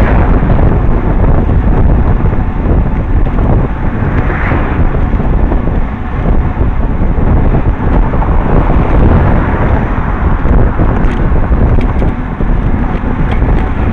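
Wind buffeting the microphone of a camera on a moving road bicycle: a loud, steady, low rumble.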